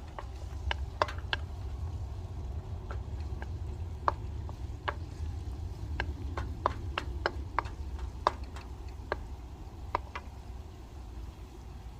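Cooking utensil stirring garlic and lemongrass in a pan: irregular sharp clicks and taps of utensil against the pan, over a steady low rumble.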